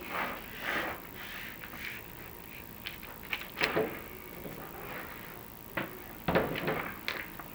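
Chimney inspection camera and its cable scraping and bumping against the clay tile walls of a masonry flue as it is lowered: irregular scrapes with a few sharp knocks, the loudest cluster near the end.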